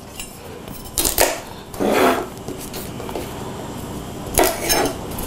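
Chef's knife chopping through asparagus stalks onto a wooden butcher-block cutting board: a few separate strikes of the blade on the board.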